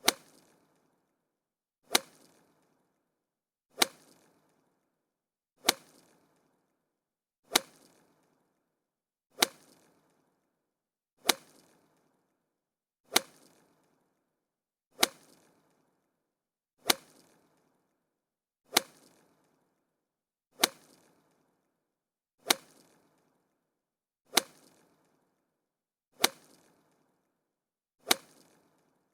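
Golf club striking a golf ball: a sharp, short crack, repeated about every two seconds, sixteen times over.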